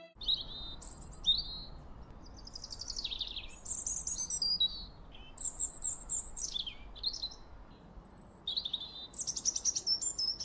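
Small birds singing and chirping: a run of high chirps and quick falling whistled phrases, one after another, with short gaps.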